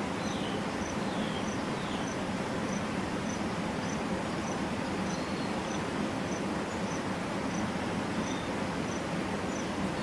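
An insect chirping, a short high note repeating evenly about twice a second, over a steady low background noise.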